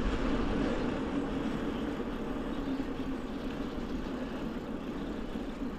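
Norco Storm 2 mountain bike rolling along a trail: steady tyre roll and wind rush on the microphone, easing off slightly.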